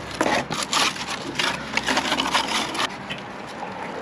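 Cardboard being pushed, scraped and rustled as it is wedged around the base of a cast iron soil pipe, in a run of irregular scrapes that eases off near the end.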